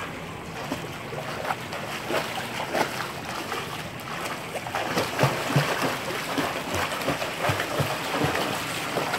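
Pool water splashing and sloshing as a child swims and kicks, with irregular splashes that come more often and a little louder in the second half.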